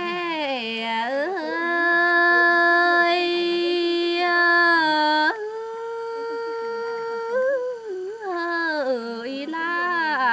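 A Tày woman singing lượn cọi, a Tày folk song, solo and unaccompanied. She sings long held notes joined by sliding, wavering ornaments, holding one note for several seconds, then stepping up to a higher held note about five seconds in.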